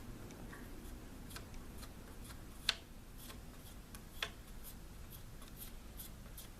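Faint scattered clicks and light taps of a small plastic spreader tool working thermal paste across a CPU's heat spreader, with two sharper clicks about three and four seconds in, over low room noise.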